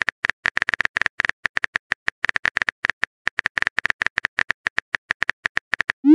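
Phone keyboard typing sound effect: a quick, uneven run of light clicks, several a second, as a text reply is typed out. Right at the end a rising swoop begins as the message sends.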